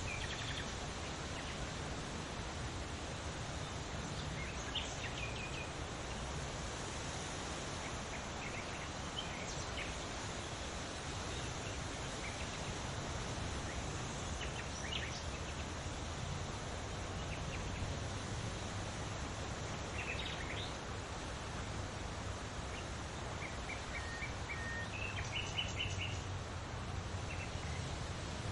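Steady rustle of leaves in the wind, with small birds chirping in short scattered calls now and then.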